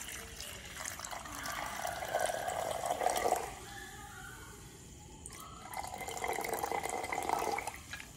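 Soda water being poured into a glass in two pours with a short pause between them, the liquid splashing and fizzing as it fills.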